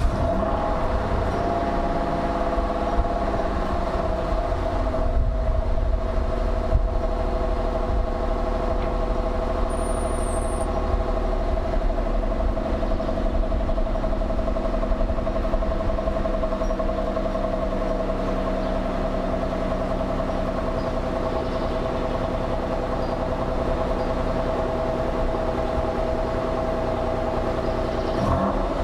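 Mercury Cougar's exhaust on its stock cat-back running at a steady engine speed, heard at the tailpipe, with a terrible rasp.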